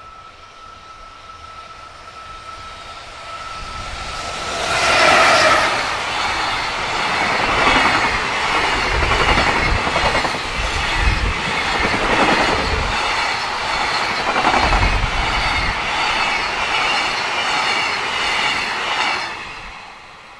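Electric-locomotive-hauled JR Freight container train passing close by. A steady high tone grows as it approaches, the locomotive goes by about five seconds in, and then the long run of container wagons follows with a rhythmic clatter of wheels on the rails. It fades quickly near the end as the last wagon passes.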